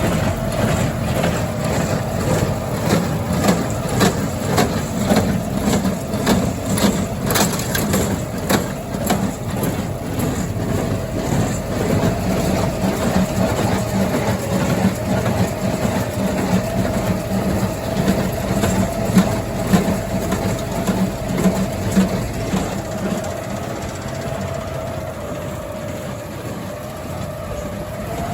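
Tractor engine running steadily under the rebaling work, with repeated clanking and knocking from the machinery over most of the stretch that eases off toward the end.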